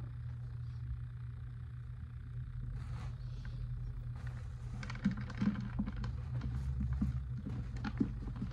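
Soft handling noises over a steady low hum: plastic bag rustling and light knocks as a wooden hideout box is moved about, with a busier run of clicks and crinkles in the second half.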